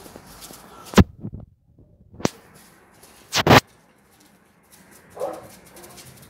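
Sharp, loud knocks about a second in and again, louder and doubled, a little past the middle. Near the end, a single short bark from a Central Asian Shepherd (alabai) puppy.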